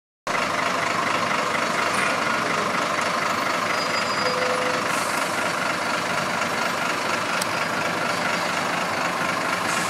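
Articulated Irisbus Citélis 18 city bus idling at a stop, a steady diesel engine hum with street traffic behind it. A short faint beep sounds about four seconds in.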